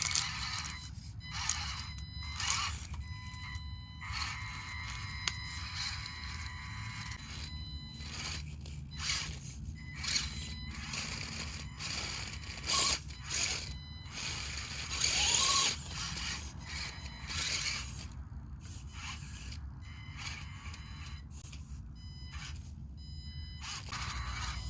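Axial SCX24 mini RC crawler driving over rough ground: a thin steady whine from its small electric motor and gears, with irregular bursts of its hard 3D-printed plastic tires scraping and sliding, loudest a little past halfway.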